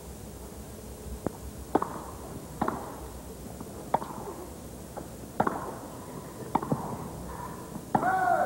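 Tennis ball struck back and forth with rackets in a baseline rally: a series of sharp hits about a second apart, ending with a short vocal call.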